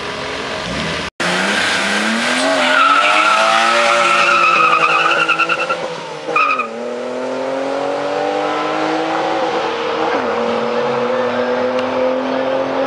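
Cars launching hard from a standing start in a street drag race, tires squealing as the engines rev up. The pitch drops at an upshift about six and a half seconds in, with a short tire chirp, then drops again at another shift near ten seconds as the cars keep pulling away.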